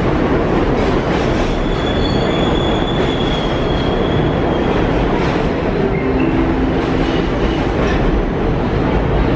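Kawasaki R62 subway train pulling into the station alongside the platform, its wheels rumbling and clicking over the rail joints. A thin, steady high squeal comes in about two seconds in and holds for nearly three seconds.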